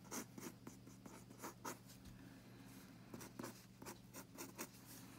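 Mechanical pencil scratching on paper in short, irregular strokes as a sketch is drawn, over a faint steady electrical hum.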